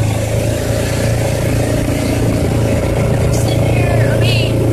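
Kawasaki Mule utility vehicle's engine running steadily on the move, an even low drone. A few short high chirps come near the end.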